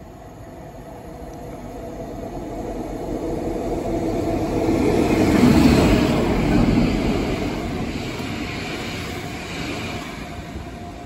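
GBRf Class 60 diesel locomotive 60021, with DB Cargo Class 66 locomotives behind it, running through the station. Engine and wheel noise builds steadily as the Class 60 approaches and is loudest about six seconds in as it passes. It then dies away as the Class 66s follow it past.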